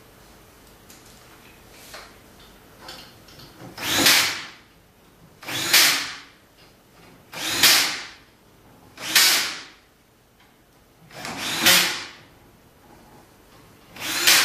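Handheld power drill run in six short bursts, each under a second and spaced about one and a half to two and a half seconds apart, driving fasteners into the CNC table's aluminium frame. A couple of faint clicks come before the first burst.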